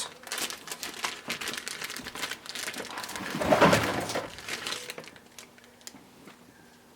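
Plastic packaging crinkling and rustling as it is handled, with small clicks, loudest a little past halfway and dying away near the end.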